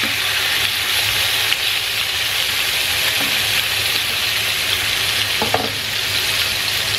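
Leg of lamb steak searing in smoking-hot olive oil in a pan: a steady loud sizzle with a few scattered crackles and pops.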